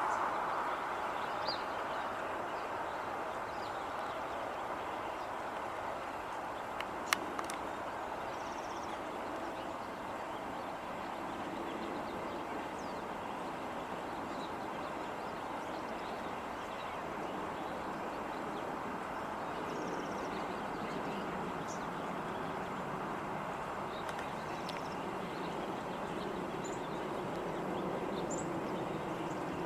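Steady outdoor background rush, such as distant traffic or wind, with faint brief chirps of small birds here and there. Two sharp clicks come about seven seconds in.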